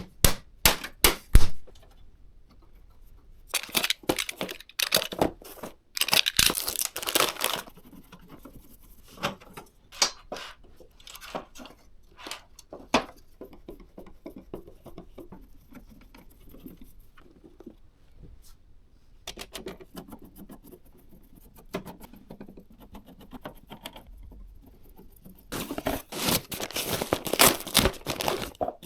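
Hands handling PC parts and their packaging: a few sharp clicks, then spells of rustling and crinkling of plastic or paper wrapping, with scattered clicks between and the densest rustling near the end.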